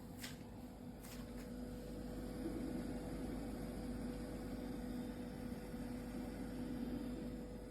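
Steady low electrical hum with a thin, higher steady tone above it, growing a little louder through the middle stretch.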